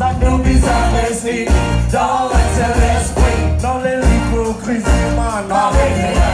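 Live band playing: several vocalists singing into microphones over electric guitar, bass, keyboards and drums, with a strong pulsing bass.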